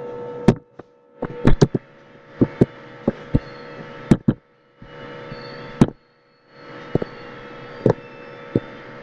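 Computer mouse clicks, about fifteen short sharp clicks at uneven intervals, over a steady electrical hum that cuts out briefly a few times.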